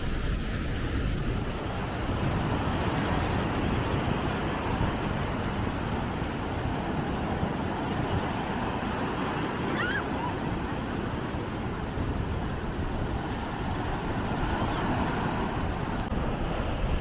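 Surf washing steadily onto a sandy beach, with wind rumbling on the microphone. A brief high chirp sounds about ten seconds in.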